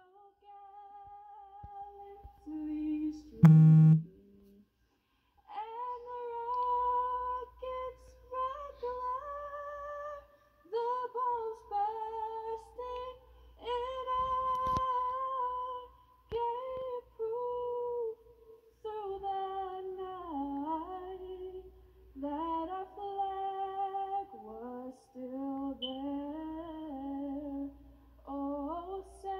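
A female graduate singing the national anthem solo and unaccompanied into a podium microphone, with long held notes, heard through a television's speaker. A single sharp, loud knock sounds about three and a half seconds in.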